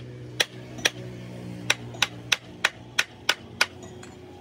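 Hand hammer striking the steel parts of a truck differential carrier: about nine sharp blows at an uneven pace, about three a second at their quickest. A steady low hum runs underneath.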